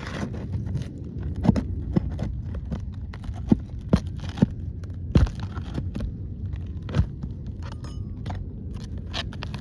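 Metal roofing tool knocking and scraping against asphalt shingles as a roofing nail is worked loose, with a string of sharp knocks over a steady low rumble.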